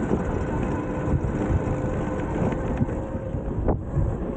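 Wind buffeting the microphone of a camera on a moving scooter, a fluctuating low rumble mixed with road noise, over a faint steady whine.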